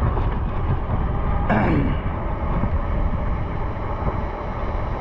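Wind buffeting the microphone with a steady low rumble while riding an electric bike. About a second and a half in, a brief tone falls sharply in pitch.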